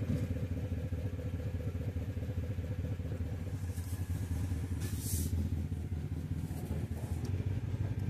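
Engine of a small vehicle running steadily at low speed while moving, a continuous low rumble, with a short rush of noise about five seconds in.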